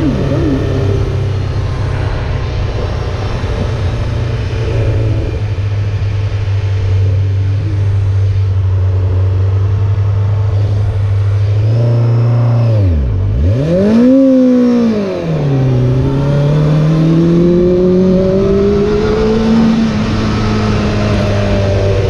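Honda CBR600F4's inline-four engine running under way, with wind rush: it holds a steady pitch, then about twelve seconds in the revs fall steeply and pick up again as the bike slows through a turn. It then climbs steadily under acceleration before settling back to a steady cruise near the end.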